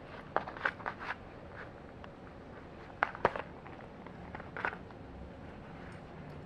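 Husky gnawing and working at a cardboard toilet-paper tube to get a treat out of it: clusters of sharp crackling clicks from teeth on cardboard, about half a second in, around three seconds, and again near five seconds.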